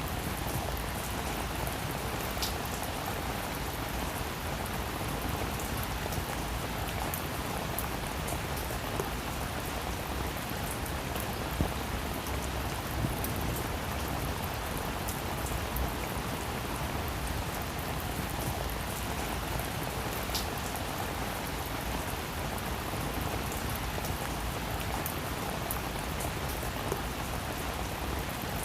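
Heavy rain falling steadily, with a dense even hiss and scattered individual drops ticking out above it.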